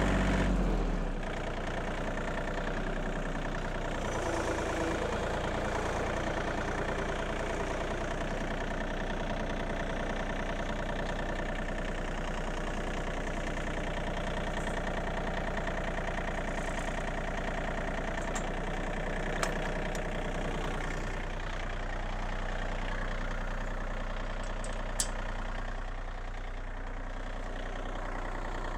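John Deere 2032R compact tractor's three-cylinder diesel engine running steadily at idle, a little louder in the first second. Two brief sharp clicks are heard in the second half.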